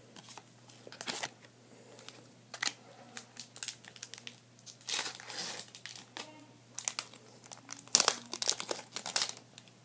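Foil wrapper of a Magic: The Gathering booster pack crinkling as it is torn open and handled, in scattered bursts, with louder stretches about five seconds in and again near the end.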